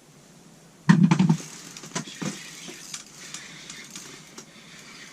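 A sudden loud thump with a short clatter about a second in, then scattered light clicks and knocks.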